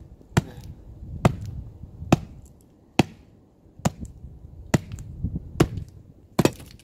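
A long tool striking down into a burning LiPo battery pack on brick paving, eight sharp blows evenly spaced a little under a second apart.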